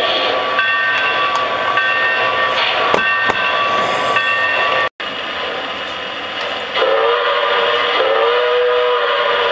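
Lionel Reading T1 O-gauge model steam locomotive, fitted with a DC motor, running along the track with a steady mechanical whir and wheel noise. After a brief dropout, its whistle sounds two blasts of about a second each.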